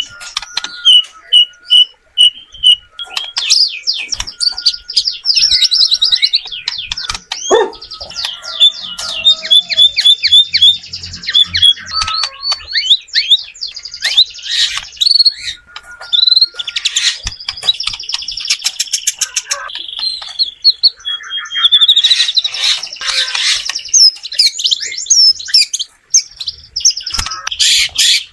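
White-rumped shama singing a loud, varied song of clear whistles, rapid trills and chirps, one phrase after another with short breaks.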